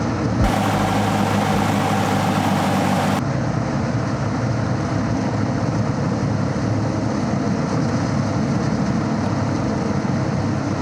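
Cessna 172S's four-cylinder Lycoming piston engine and propeller running steadily. A loud hiss cuts in about half a second in and stops sharply after about three seconds.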